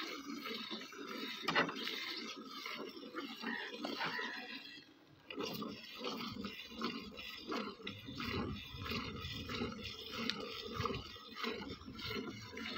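Hand-milking: jets of milk squirting in quick repeated strokes into a stainless steel pail, with a brief pause about five seconds in.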